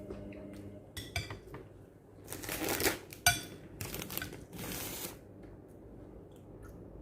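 Close-up eating sounds: a few sharp clicks of cutlery against a dish and several short, noisy mouth-and-chewing sounds in the middle, then quieter.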